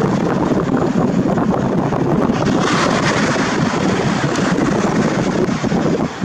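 Wind buffeting the microphone: a loud, steady rumbling hiss that turns sharper for a second or two about three seconds in.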